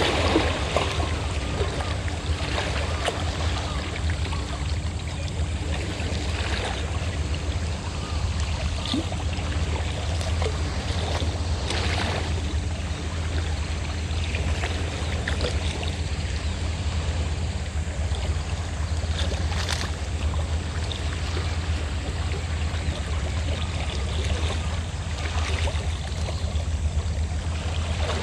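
Small sea waves washing on the shore, swelling and fading every few seconds, over the steady low drone of a fishing boat's engine.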